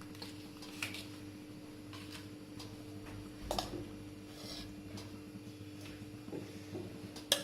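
Scattered light clicks and taps of kitchen utensils and muffin cups being handled, sharpest near the end, over a steady low hum.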